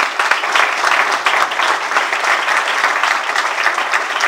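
Audience applauding: many hands clapping together in a dense, steady wash.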